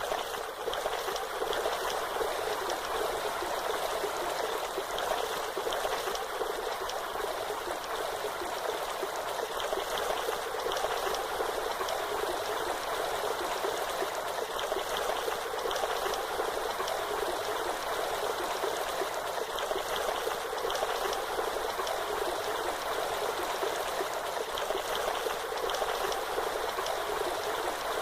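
Waterfall: a steady, even rush of falling water, without change.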